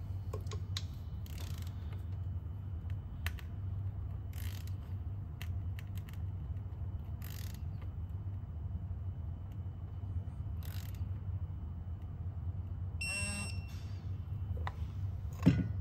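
Snap-on digital torque wrench being turned through the 270-degree angle stage on an injector clamp stretch bolt, with faint clicks and rustles over a steady low hum. Near the end the wrench gives a short electronic beep, its signal that the target angle is reached, and a sharp clunk follows shortly after.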